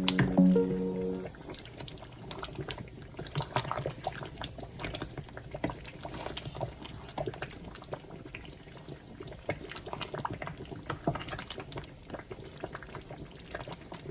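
Tomato stew simmering in a pot, a steady patter of small bubbling pops and crackles.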